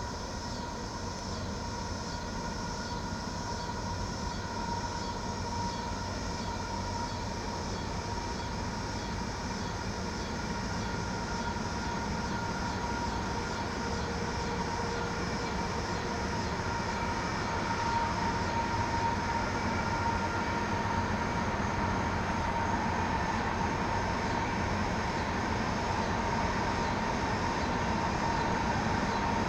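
Freight train rolling by, with a steady high ringing tone over the rumble of wheels on rail, growing gradually louder.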